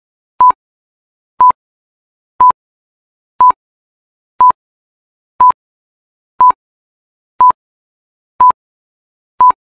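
Electronic countdown-timer beeps: ten short beeps of one steady pitch, evenly spaced one second apart, each marking one second of the countdown.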